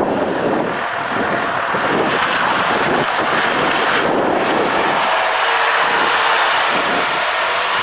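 Mercedes-Benz tanker lorry driving slowly past close by, its diesel engine and tyres heard under heavy wind buffeting on the microphone.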